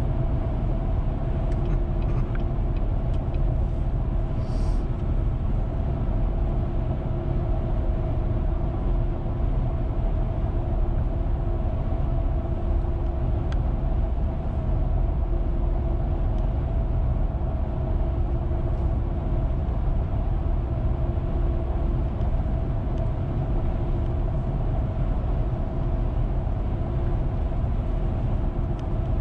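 Road and engine noise inside a car's cabin while it drives at steady speed: a continuous low rumble with a faint steady hum over it.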